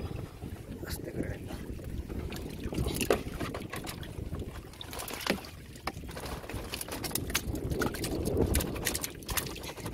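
Sack-wrapped bamboo prawn trap being handled and tipped on a wooden boat: scattered clicks and knocks, getting more frequent in the second half as water drips and splashes from the trap into the boat. A steady low rumble of wind sits underneath.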